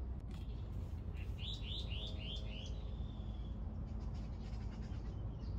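A bird calling a quick run of about five chirps, each falling in pitch, starting about a second in, over a steady low rumble.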